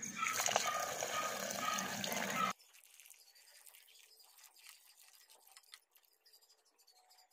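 Tap water running into a rice cooker's inner pot onto uncooked rice. It cuts off abruptly and is followed by faint swishing and clicking as a hand rubs the rice grains in the water to wash them.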